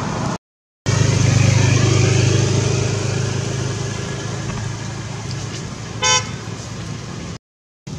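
A motor vehicle running close by, loudest a second or two in and then fading, with one short horn toot about six seconds in. The sound cuts out completely twice, briefly.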